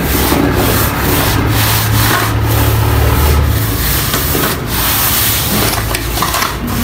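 A mason's straightedge scraping along wet cement plaster on a beam, cutting back the excess to level the coat. A continuous rough rubbing, with a low hum underneath for the first few seconds.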